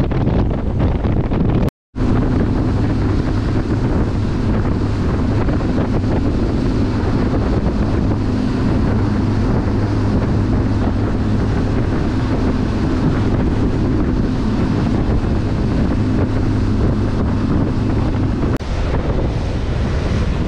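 Catamaran under way at sea: wind buffeting the microphone over rushing water, with the steady drone of its engines underneath. There is a brief total dropout about two seconds in, and near the end the engine drone falls away, leaving only wind and waves.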